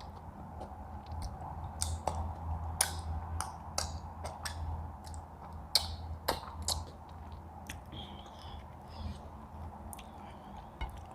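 Close-up eating sounds: chewing with scattered sharp crunches and clicks, over a low steady hum.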